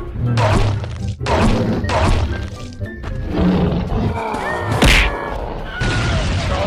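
Cartoon fight soundtrack: background music with a series of whack and thud hit effects, the loudest impact about five seconds in.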